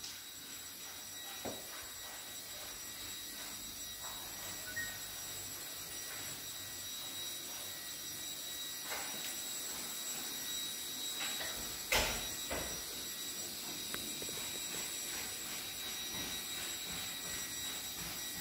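Quiet indoor room tone with a steady faint high-pitched whine and a few scattered soft knocks, the loudest a sharp knock about twelve seconds in.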